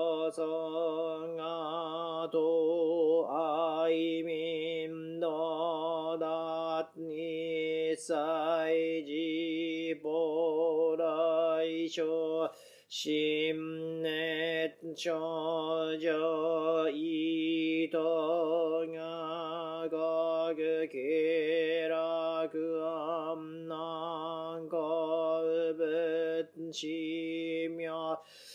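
A Buddhist priest chanting a sutra of the Jōdo Shinshū morning service in long, drawn-out syllables on a wavering pitch, with a short break for breath about twelve seconds in.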